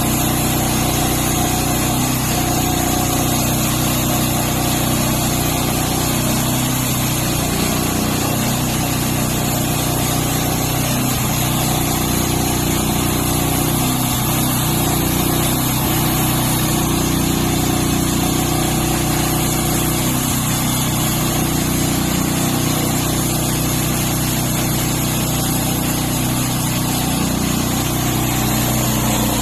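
Engine of a homemade sawmill running steadily at an even speed, with no change in pitch.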